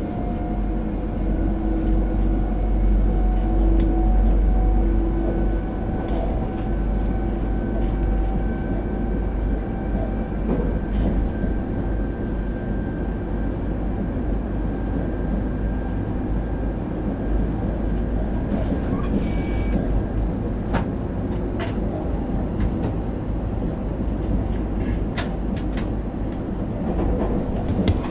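Electric train running along the line: a heavy low rumble of wheels on rail with a steady whine that rises slightly in pitch, then sharp clicks here and there in the second half. It gets louder near the end as the train runs onto a steel truss bridge.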